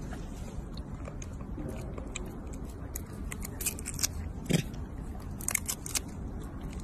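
A macaque biting and chewing a green fruit: a run of crisp clicks and crunches, the biggest about four and a half seconds in, over a steady low rumble.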